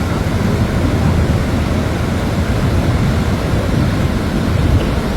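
Loud, steady low rumble of wind buffeting the microphone over breaking sea surf.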